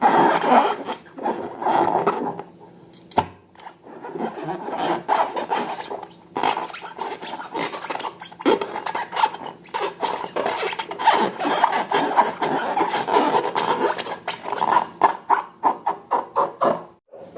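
Slime being squeezed and worked by hand, giving a dense run of sticky crackles, clicks and squelches, with a brief pause about three seconds in.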